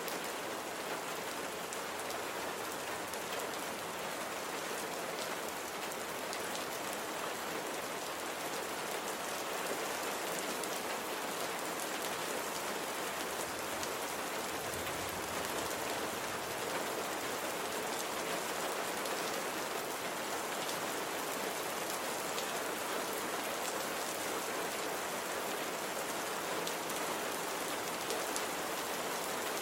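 Steady rain falling, an even hiss with many fine drop patters.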